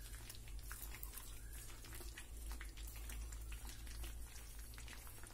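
Faint scattered ticks and soft pops from thick cornflour halwa cooking in a pan, over a steady low hum.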